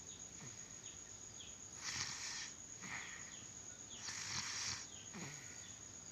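Snoring in sleep: a rasping, breathy snore about every two seconds, with a smaller one between.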